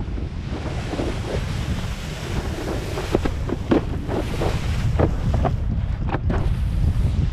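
Wind buffeting a helmet-mounted camera's microphone while a wakeboard is towed over the water, with the rush of spray from the board. Between about three and six and a half seconds in comes a run of short sharp slaps from the board against the water.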